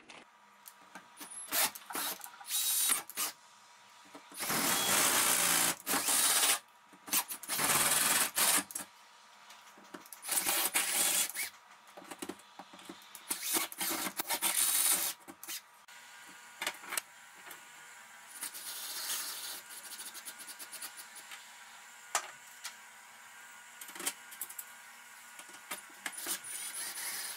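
Cordless drill boring holes in drywall in several short bursts of a second or two each, the holes for snap toggle anchors, followed by quieter clicks and shorter runs of the drill driving screws to fix a metal TV wall bracket.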